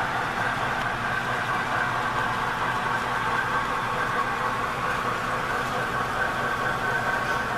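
Model train locomotive running on a DC-powered layout, a steady electric motor hum and whine.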